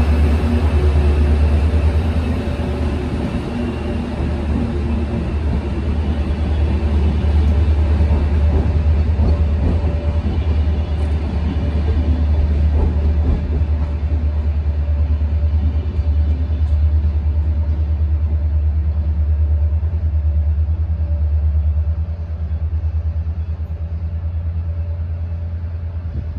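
A DSB double-deck passenger train hauled by an ME class diesel locomotive rolling past and drawing away, a loud steady low rumble of wheels on rails and engine. It eases slightly about three-quarters of the way through as the last coach, the cab car, moves off.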